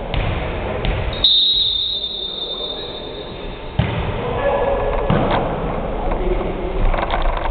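A referee's whistle sounds one long steady note a little over a second in, then a volleyball is served and played: sharp hits of hands on the ball, with players' voices.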